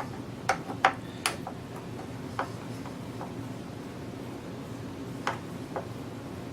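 Light clicks and taps from a loudspeaker driver being lifted out of its wooden cabinet: three in the first second and a half, a few scattered after, and two more a little past five seconds.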